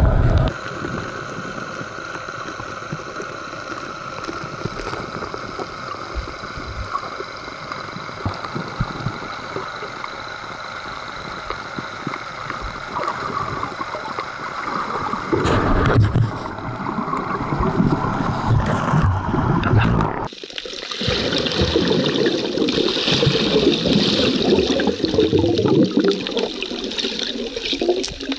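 Muffled water sloshing and gurgling heard through a camera held underwater in the sea, as a swimmer moves about. There is a louder surge about fifteen seconds in, and the sound changes abruptly about twenty seconds in.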